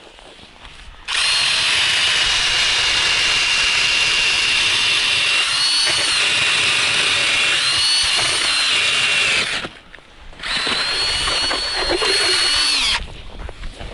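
Cordless drill turning an ice auger as it bores a hole through the ice: a steady motor whine with the grinding of the cutting blades. It runs for about eight seconds, stops briefly, then spins up again for a few seconds more and winds down.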